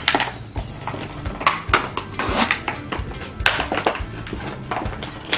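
A dog chewing and crunching a plastic soda bottle, a run of irregular crackles and sharp clicks from the plastic.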